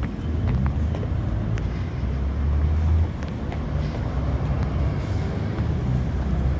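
Wind buffeting the microphone outdoors: a loud, uneven low rumble that swells and drops, with a few faint ticks over it.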